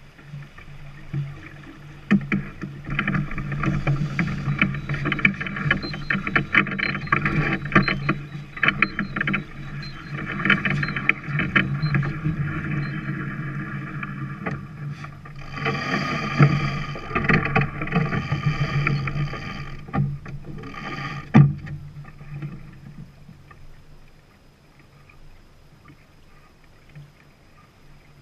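Water rushing and splashing along the hull of a Peterson 34 sailing yacht under way, uneven and with surges, and a sharp knock a little after two-thirds through. It dies down to a low rush near the end.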